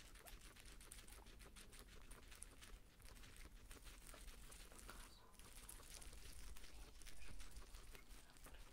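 Two guinea pigs chewing fresh leafy greens: a quiet, rapid, continuous patter of small crunching clicks as they munch through the leaves and stems, a little louder about seven seconds in.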